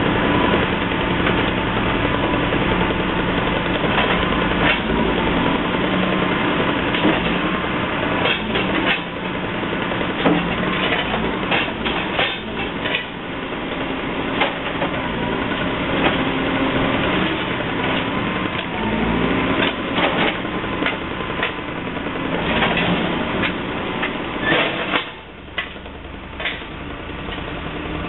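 Heavy construction machinery engine running steadily, with many irregular metallic clanks and knocks over it; the engine noise drops away near the end.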